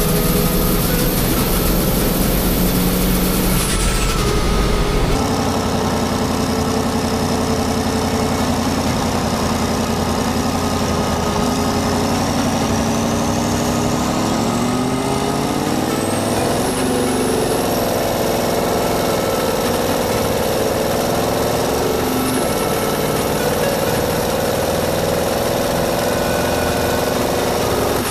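Turbocharged Scania diesel drag-racing truck engine under hard acceleration, with black smoke pouring from the exhaust. After a steady stretch its pitch climbs, dips briefly twice as it shifts, and climbs again, with a high turbo whine riding over it.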